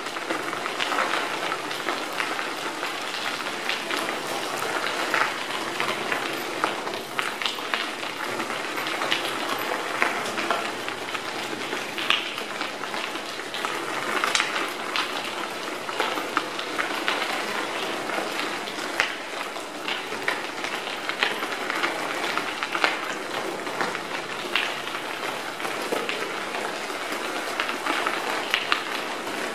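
Bicycle tyres rolling over a crushed-stone trail surface: a steady crunching hiss with frequent small clicks and rattles from the gravel and the bike.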